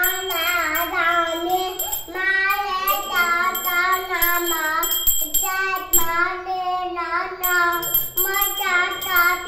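A young child singing a devotional chant in long, wavering held notes, pausing briefly for breath. A small bell rings faintly behind the voice.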